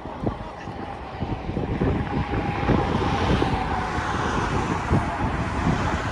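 Wind buffeting an outdoor camera microphone in irregular gusts, with a faint steady drone underneath.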